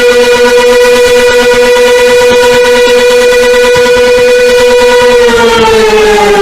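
Siren sounding a loud, steady tone at one pitch that starts to wind down, falling in pitch, about five seconds in.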